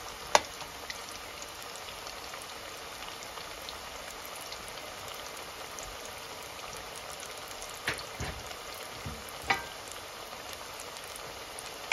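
Masala-coated potato fries deep-frying in hot oil: a steady sizzle, with three sharp clicks, one just after the start and two near the end.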